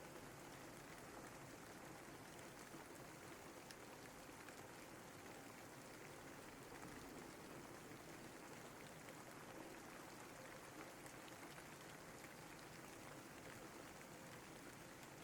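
Faint, steady rain falling, an even hiss with scattered small drop ticks.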